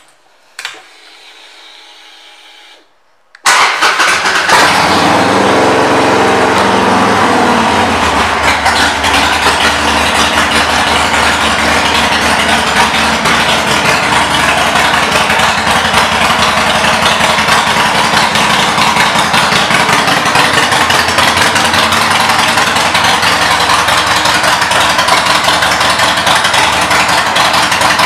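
A Harley-Davidson Sportster 1200 Custom's air-cooled V-twin, fitted with Vance & Hines exhaust pipes, is started after a faint whine of about two seconds. It fires suddenly about three and a half seconds in, and after a few seconds of changing pitch it settles into a loud, steady idle.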